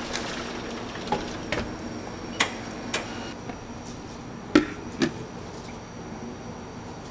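Dishware being handled on a counter: a clear cake dome cover, a cake plate and a bread knife. Several sharp clinks and knocks come one by one, the loudest two about four and a half and five seconds in, over a steady background hum.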